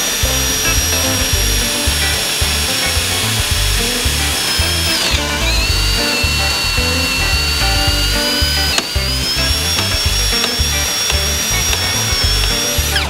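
Electric drill running at high speed, drilling the outboard's mounting holes: a steady high whine that drops in pitch about five seconds in, rises again near nine seconds, and winds down at the end. Background music with a beat plays underneath.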